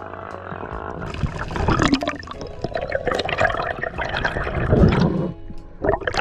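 Water sloshing, splashing and bubbling around a camera held just under and at the surface of the sea, with many small irregular splashes and gurgles.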